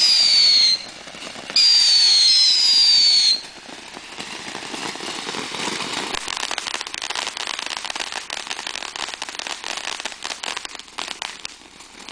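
Ground fireworks going off. A couple of loud, shrill whistles slide slightly down in pitch, with a short break between them. Then, about three and a half seconds in, a dense run of rapid crackling takes over until near the end.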